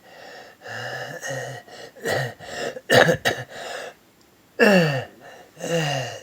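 A person gasping for breath with stridor, the harsh, strained noisy breathing of a narrowed upper airway. There is a run of rough, rasping breaths, and some carry a voiced note; the loudest, about two-thirds of the way in, falls steeply in pitch.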